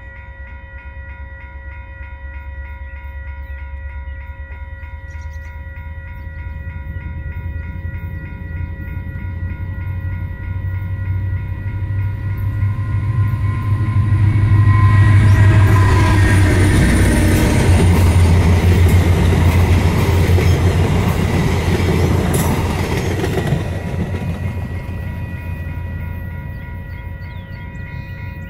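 VIA Rail F40PH-2D diesel locomotive, powered by a 16-cylinder EMD 645 engine, approaching and passing with its passenger cars. Engine rumble and wheel noise build to a peak about fifteen seconds in, stay loud while the cars roll by, then fade near the end. A level-crossing bell rings steadily throughout.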